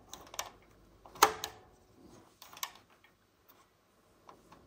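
Range push-buttons on a Meratronik V543 nixie digital multimeter being pressed: a handful of short, scattered clicks, the loudest about a second in.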